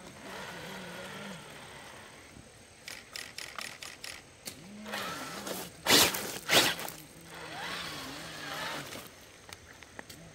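Electric RC rock crawler driving over gravel: its motor and gears whine, rising and falling in pitch as the throttle is worked. Tyres crunch and tick on loose stones, with two loud bursts of noise about half a second apart near the middle.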